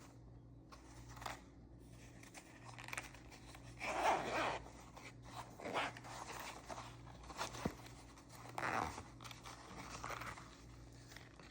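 Product packaging being handled and opened by hand: a series of short rustling, scraping and tearing sounds, the loudest about four seconds in.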